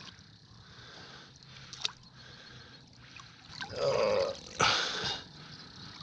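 Water splashing as a large sturgeon is hauled up against the side of a boat, with one loud splash about three-quarters of the way through, just after a brief strained grunt of effort.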